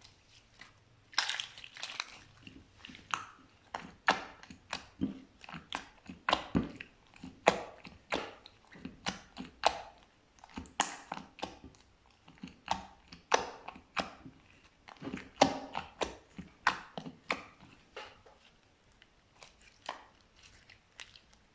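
Slime being squished and worked by hand, giving irregular sharp, wet clicks and pops about one to three a second.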